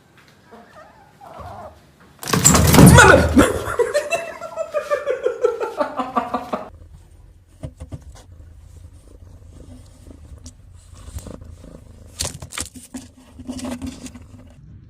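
A cat's loud outburst followed by a run of pulsing, wavering cries that fall in pitch, then scattered small clicks and knocks.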